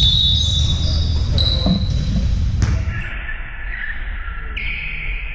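Live game sound from a basketball court in an echoing gym: a ball bouncing on the hardwood floor, with short high squeaks now and then. The sound changes abruptly about halfway through.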